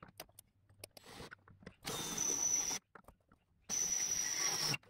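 Cordless drill running in two bursts of about a second each, a steady high motor whine over a rough whirr, after a few light clicks of tool handling.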